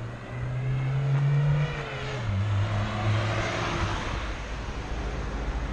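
A car passing on the road: a steady engine hum that drops in pitch about two seconds in, over a hiss of road noise.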